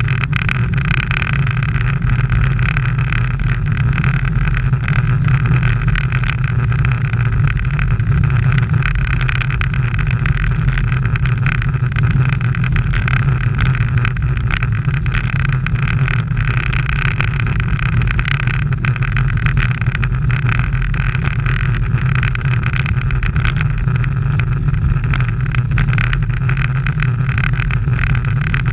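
Steady rumble of wind and tyre noise picked up by a camera mounted on a road bicycle riding at race speed over coarse asphalt, with no change in pace or pitch.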